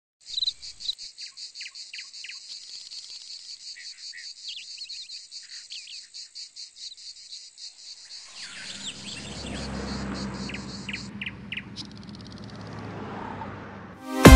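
Insects chirring in a steady pulsing rhythm, with birds chirping over them. About eight seconds in, a low vehicle engine rumble builds up, and music cuts in right at the end.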